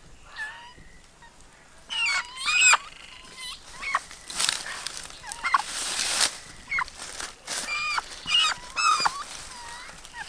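A handled chicken squawking in short, wavering outbursts, about half a dozen calls from about two seconds in, with a stretch of rustling around the middle.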